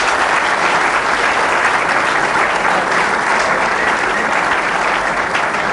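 Studio audience applauding: many hands clapping in a dense, steady wash, thinning into separate claps near the end.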